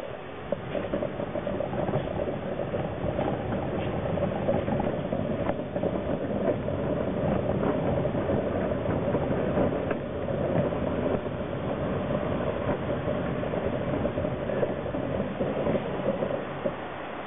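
Wheeled trolley rolling across the floor, its casters and frame giving a steady rumble and rattle that drops away near the end as it stops.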